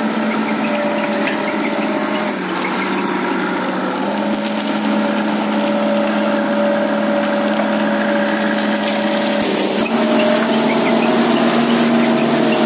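The diesel engine of an Ajax Fiori Argo 2000 self-loading concrete mixer runs steadily. Its pitch dips twice, about two and a half seconds in and again near ten seconds, and rises back each time.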